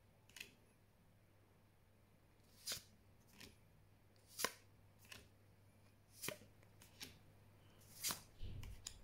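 Magic: The Gathering trading cards being flicked one by one through a hand-held stack, each card slid off the stack with a short sharp snap: about eight snaps at irregular spacing, with a soft low bump near the end.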